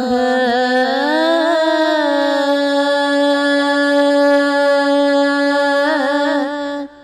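A solo singer's voice in an Urdu devotional naat. It winds through an ornamented run, then holds one long steady note that breaks off just before the end.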